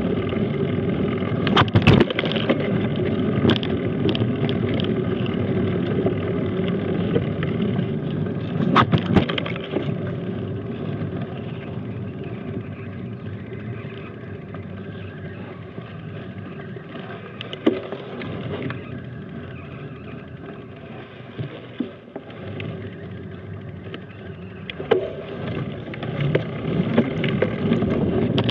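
Mountain bike rolling slowly over a gravelly forest dirt road: a continuous rough rumble of tyres and frame rattle, with sharp knocks as the bike hits bumps, the loudest about 2 and 9 seconds in. The noise eases off through the middle stretch and picks up again near the end.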